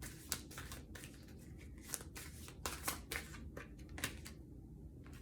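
A tarot deck being shuffled by hand: a quick run of flicks and rustles of cards that stops a little past four seconds in, as a card is drawn.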